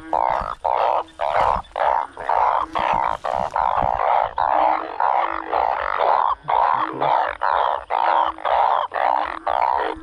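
Loud chorus of narrow-mouthed frogs (อึ่งอ่าง) calling after heavy rain, overlapping calls pulsing about twice a second, with shorter, lower notes from other frogs beneath them.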